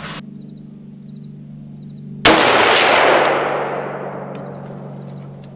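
A single rifle shot from an AR-style scoped rifle about two seconds in, a sighting-in shot, its report echoing and dying away over about two and a half seconds.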